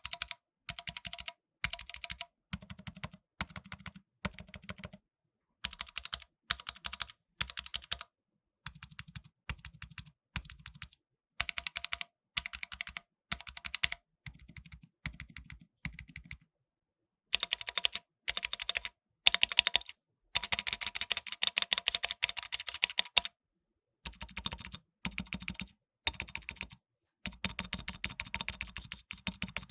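Typing on an AKKO MOD005 mechanical keyboard with AKKO Jelly Black linear switches and AKKO Black and Silver keycaps: rapid keystroke clacks in short runs with brief silent gaps between them, and a longer, faster run of typing a little past the middle.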